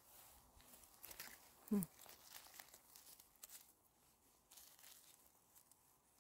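Faint rustling and crackling of forest-floor vegetation being handled while picking mushrooms, with one brief pitched sound that drops in pitch about two seconds in.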